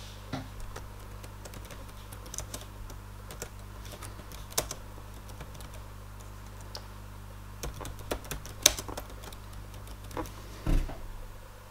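Typing on a laptop keyboard: irregular key clicks, with a heavier thump near the end, over a steady low hum.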